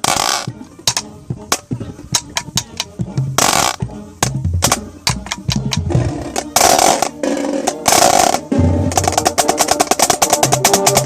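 Marching band playing, with snare drum strokes close to the microphone over the ensemble. There are four loud crashes in the first eight seconds, then near the end a rapid, even run of snare strokes under held chords.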